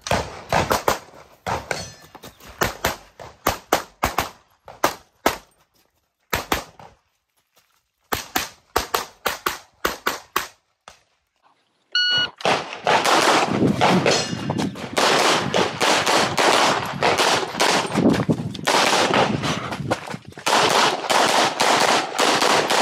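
Pistol fired in fast strings of shots, in groups with short pauses between. About 12 seconds in, a shot timer's start beep sounds and a second, denser run of rapid pistol fire follows.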